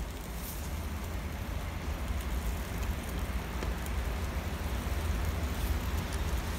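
A ham sizzling over glowing charcoal on a grill: an even hiss with a few faint crackles, over a steady low rumble.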